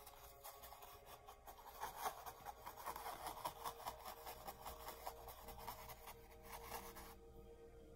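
Paintbrush bristles scrubbing paint onto a stretched canvas in rapid, scratchy repeated strokes, stopping abruptly about seven seconds in.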